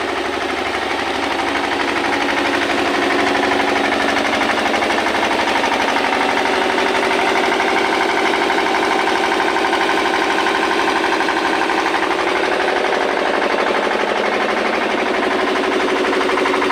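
An engine on a heavy-haul modular trailer rig running steadily with a rapid, even clatter, growing a little louder over the first few seconds.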